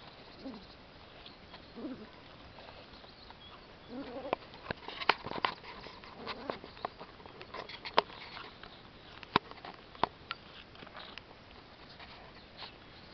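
Young Yorkshire terriers at play on grass: a few short low vocal sounds, then a run of sharp clicks and taps between about four and eleven seconds in.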